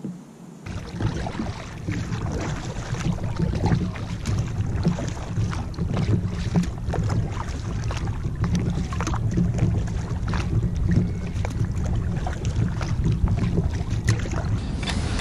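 Double-bladed paddle strokes splashing and water rushing along an inflatable PVC kayak's hull, with wind buffeting the microphone; it starts abruptly about a second in.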